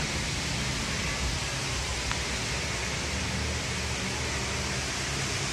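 Strong wind rushing steadily through trees, with a low rumble of wind buffeting the microphone.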